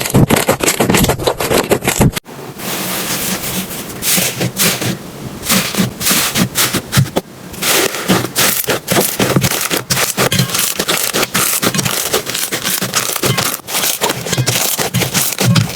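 Slime being squished and pressed by hand, giving a dense, irregular crackling of sticky clicks and pops. The sound changes abruptly about two seconds in as one clip gives way to another.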